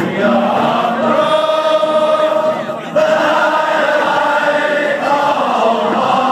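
Singing of a slow song, with long held notes and a short break for breath about three seconds in.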